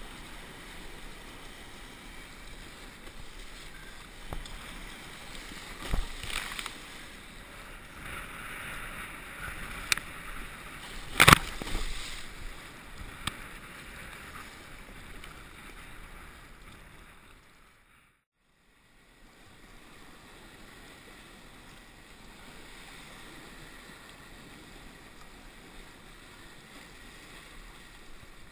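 Sea kayak being paddled through choppy, wind-driven sea: a steady rush of water and wind, broken by a few sharp splash hits, the loudest a little over a third of the way in. The sound briefly drops almost to nothing about two-thirds of the way through, then the steady water rush returns.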